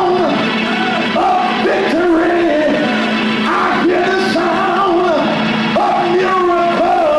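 Church music with a voice singing over it and some shouting.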